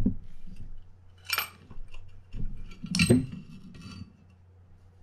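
Metal parts of a Shimano Tiagra 50W LRS reel knocking and clinking as the spool and side plate are drawn out of the frame. There is a knock at the start and two sharper metallic clinks about a second and a half and three seconds in.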